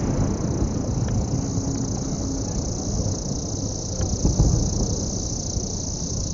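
Crickets chirping steadily in an unbroken high band, over a low rumble that slowly fades, with a few faint clicks.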